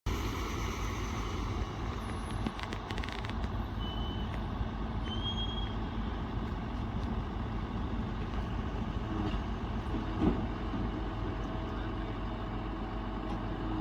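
Heavy diesel engine of a bulldozer running steadily, with a few clicks a couple of seconds in and a single sharp knock about ten seconds in.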